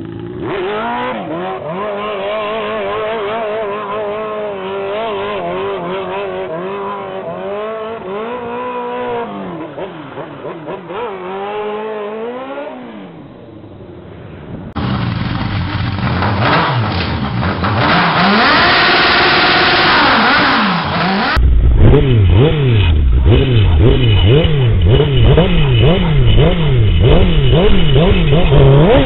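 Engine-swapped quad bikes running and revving. The first rides away, its engine note rising and falling and fading into the distance. After a cut, a sand-drag quad's engine is revved up and down about twice a second, louder.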